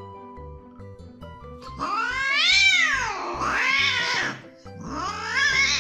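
A domestic cat yowling twice over light background music: two long, drawn-out calls that rise and fall in pitch, the first starting just under two seconds in, the second near the end.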